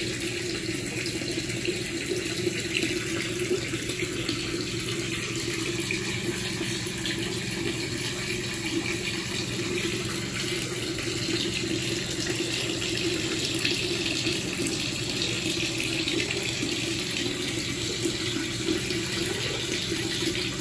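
Steady bubbling, running water in an aerated catfish hatching tank, over a low steady hum.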